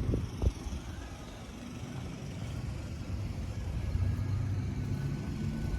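Low rumble of motor traffic, growing a little louder after about four seconds.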